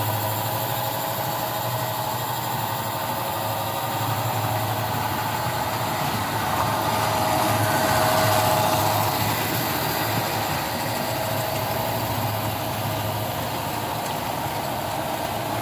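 American Flyer S gauge Santa Fe ALCO PA diesel model trains running: a steady motor hum under the rattle of wheels on metal track, getting louder around eight seconds in as the silver passenger set passes close.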